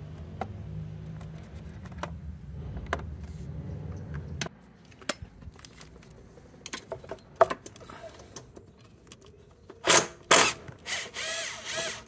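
Bosch cordless screwdriver being handled with scattered clicks, then two loud clacks and its motor whirring for about a second near the end, the pitch rising and falling as it unscrews a bolt.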